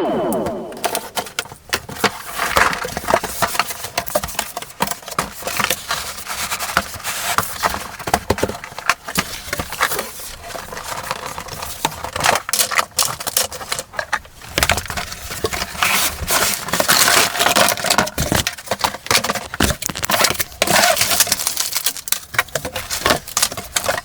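Plastic packaging crinkling and rustling, with many quick clicks and clatters of plastic playset parts being handled and fitted together as a large toy castle is unpacked and assembled.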